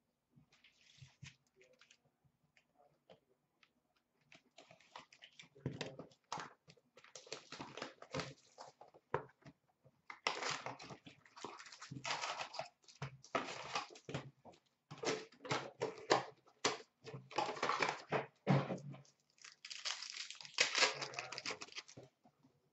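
Hockey card box and its card packs being torn open and handled: irregular crinkling and tearing of wrappers and cardboard with sharp clicks. It starts faintly and grows busier after a few seconds.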